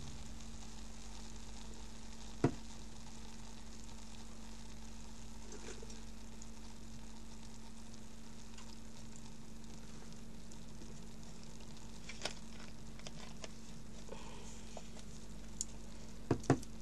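Freshly poured cola fizzing in two glasses as the foam heads settle: a faint, steady crackling hiss over a low hum. A sharp click sounds about two and a half seconds in, and a few small taps come near the end.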